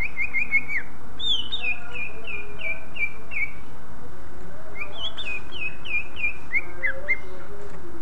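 Male green leafbird (cucak ijo) singing: fast runs of high, clear, down-slurred whistled notes. A short quick burst comes at the start, then two longer runs of about eight notes each, with a pause of a little over a second between them.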